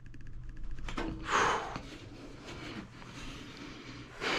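A stuck blower wheel being worked on its fan motor's shaft: a quick run of small metallic clicks, then a short, louder rasp about a second and a half in, followed by lighter scuffing.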